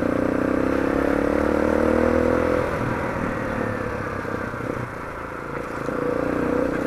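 Kawasaki KLX dirt bike's single-cylinder four-stroke engine running under way. The note rises as it pulls for about two and a half seconds, then drops off and runs rougher and lower, and climbs again near the end.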